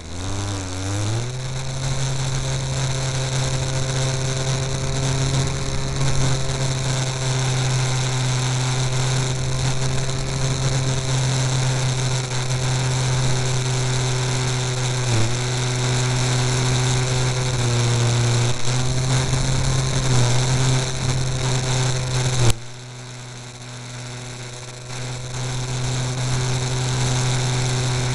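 Small motor heard from an onboard camera on a model aircraft, running up to speed in the first second or so, then holding a steady buzzing drone with slight wavers in pitch. About 22 seconds in it is throttled back suddenly and runs quieter, then picks up again a few seconds later.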